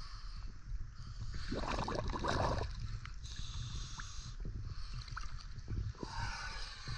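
Lake water sloshing and lapping against a camera held at the surface, over a steady low rumble. A louder splash comes about two seconds in, and a brief high hiss follows a little later.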